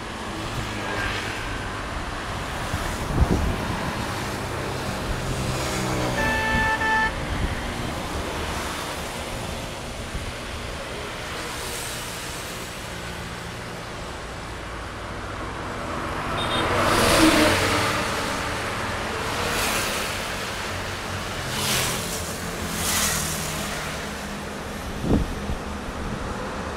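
Highway traffic: motorbikes and other vehicles passing, with engine and tyre noise swelling and fading as each goes by. The loudest pass comes about seventeen seconds in. A vehicle horn sounds once for about a second around six seconds in.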